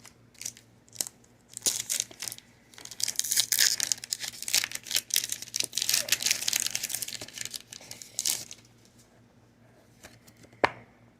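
Foil Pokémon booster pack wrapper being torn open and crinkled, a dense crackling from about two seconds in until about eight seconds, with a few light taps around it and one sharp tap near the end.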